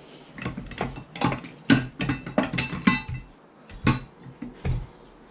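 Metal clanks and clinks from tools and metal parts being handled while taking the radio unit apart: a string of irregular sharp knocks, some ringing briefly.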